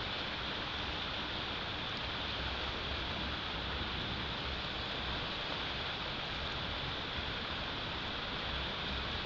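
Steady wind noise on an outdoor nest-cam microphone in a snowstorm: an even hiss with low, uneven rumbling from gusts hitting the mic.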